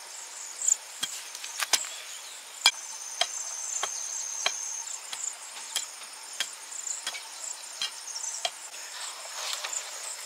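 A steady run of sharp chopping strokes on wood, a little more than one a second, with insects trilling throughout.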